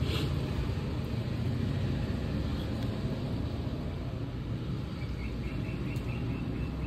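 Steady low rumble of a pedestal fan's air blowing on the earphone microphone. A faint click comes at the start, and a faint short run of high chirps comes near the end.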